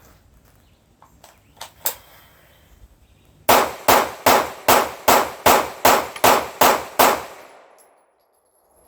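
Sig Sauer P226 pistol firing a string of about ten shots at a steady counted cadence, roughly two and a half shots a second, until the gun runs dry. A couple of light clicks come a couple of seconds before the first shot.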